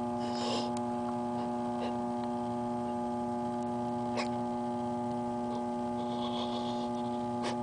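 Steady electrical hum made of several held tones stacked one above another, with a few faint clicks.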